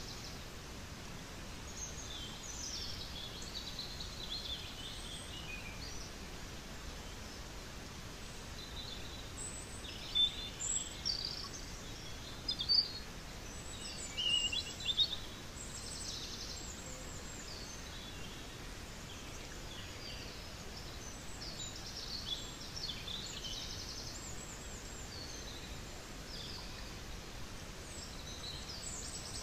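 Small birds chirping and trilling over a steady outdoor background hiss, with a cluster of louder calls about ten to fifteen seconds in.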